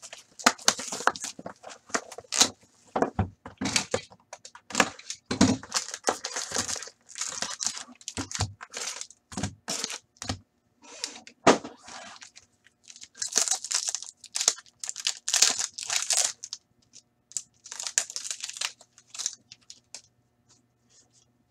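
Plastic shrink-wrap torn and crinkled off a hockey card box, then the cardboard box opened and sealed card packs handled and opened. Irregular crinkling and rustling with sharp clicks and taps throughout.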